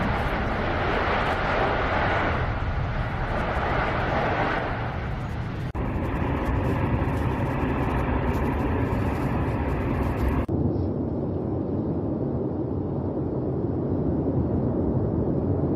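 Lava fountain of an erupting volcano, a steady rushing noise over a deep rumble. The sound changes abruptly twice, about six and ten seconds in, as different recordings of the eruption are cut together.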